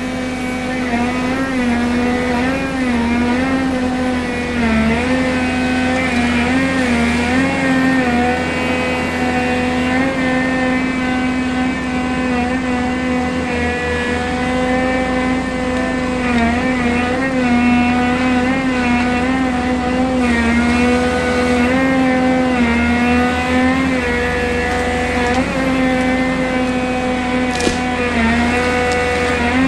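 Heavy machine's engine running steadily under load, its pitch wavering slightly up and down as the load shifts.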